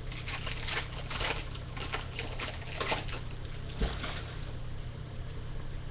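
Foil trading-card pack wrapper crinkling and crackling as it is torn open and the cards are pulled out, with one light knock a little under four seconds in. The crinkling dies away near the end, leaving a low steady hum.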